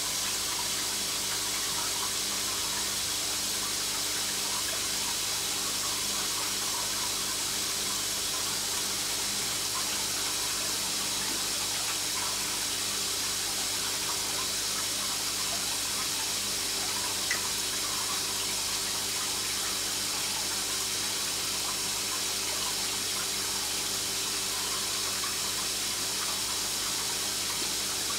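Aquarium filter running: a steady, unchanging watery hiss over a low electric hum, with one faint click partway through.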